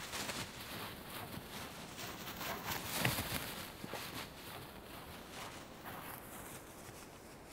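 A puppy running through dry meadow grass: quick rustling footsteps, loudest about three seconds in, then fading away over the last few seconds.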